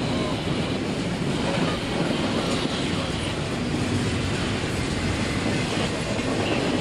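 Double-stack container train's well cars rolling past, steel wheels running on the rails with a steady, continuous noise.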